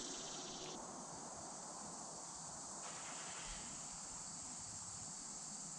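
Faint, steady high-pitched drone of insects, with no distinct events.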